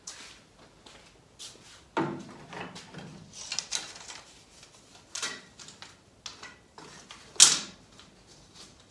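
Thin wooden strips and a length of PVC conduit being picked up and handled on a table saw top: a few scattered knocks and clatters with softer rustling between, the loudest knock near the end.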